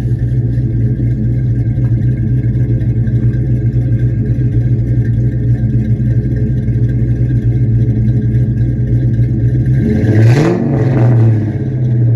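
2001 Mustang Bullitt's 4.6-litre V8, fitted with Stage 2 cams, an off-road H-pipe and two-chamber full-bore mufflers, idling through its exhaust, then revved once about ten seconds in, the pitch rising and falling quickly before it drops back to idle.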